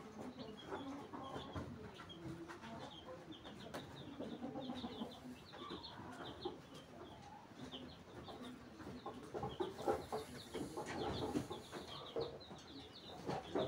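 Chickens clucking in a farmyard, with quick high bird chirps repeating throughout. A stretch of louder rustling about ten seconds in.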